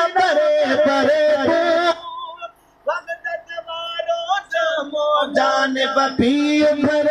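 A man singing a hamd, an Islamic devotional song praising God, into a microphone, in a wavering, ornamented melody. The voice breaks off about two and a half seconds in, returns more softly, then comes back loud with a long held note near the end.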